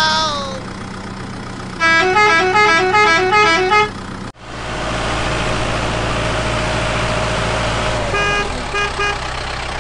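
A musical vehicle horn plays a quick tune of short notes stepping between two pitches for about two seconds. After an abrupt cut, a steady engine runs, and near the end three short horn beeps sound.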